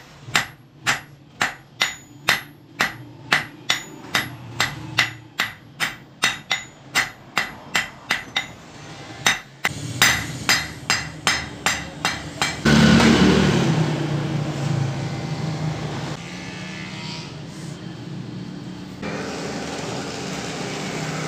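Hand hammer striking red-hot iron bar on a steel anvil block, about two ringing blows a second with a brief pause partway through. About halfway in, the hammering stops and a steady rushing noise with a low hum takes over, as the forge's fire is blown for reheating the bar.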